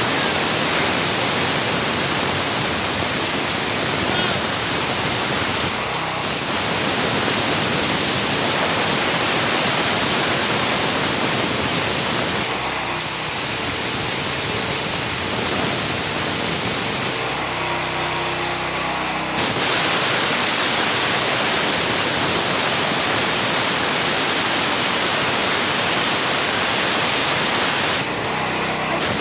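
A 4400 PSI pressure washer spraying, with a loud, steady hiss of high-pressure water. The spray breaks off briefly a few times as the trigger is let go. During the longest break, about two-thirds of the way in, the machine's engine is heard humming on its own.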